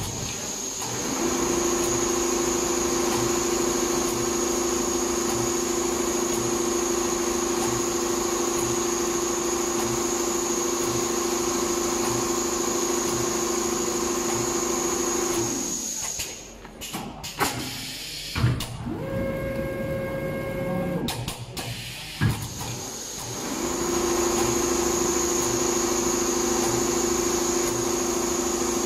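Four-head computerized leather pattern sewing machine running steadily as it stitches car-interior panels, with a constant hum and a high whine. The run stops for several seconds midway, with a couple of sharp clicks, then starts again.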